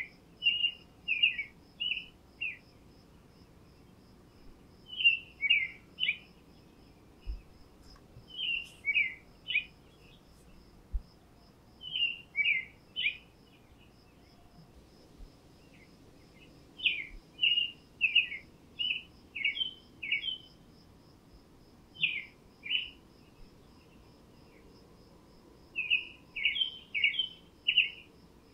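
A songbird singing short phrases of four to six quick notes, repeated every few seconds. Behind it an insect keeps up a steady, fast, high-pitched chirping.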